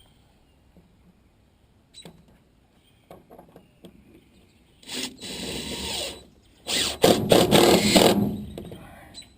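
Power drill running in two short bursts, about five and about seven seconds in, the second one louder, with a few light knocks before them.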